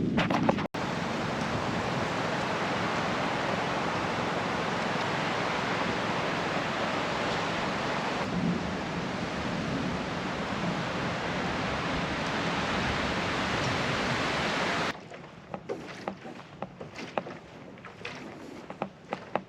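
Steady rushing noise of water, even and unbroken. It cuts off abruptly about fifteen seconds in, leaving a much quieter background with scattered light clicks and knocks.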